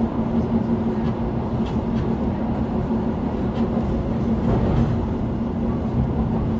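Inside a moving city train carriage: a steady rumble of the wheels running on the rails, with a steady hum and a few light clicks.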